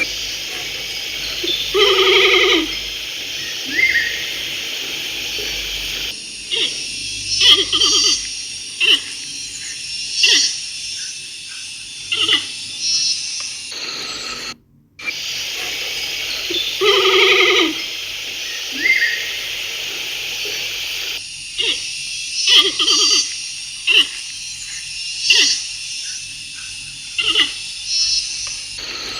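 A bear growling, then giving a string of short grunts and huffs over a steady background hiss. The same stretch of calls repeats about halfway through.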